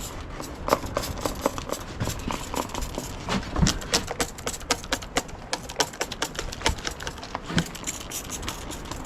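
Rapid, irregular clicks and light knocks, several a second, with a few louder knocks about three and a half seconds in.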